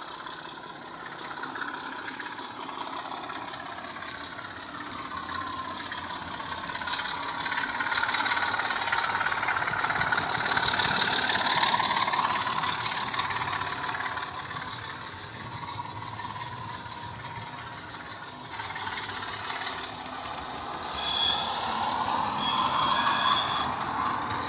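Sound-fitted Bachmann OO-gauge Class 25 model diesel running with SWD U-Drive engine sound from its double iPhone mini speaker, along with the running noise of its train of coaches on the track. It grows louder as the train passes, falls away, then builds again near the end. Two brief high-pitched squeals come near the end.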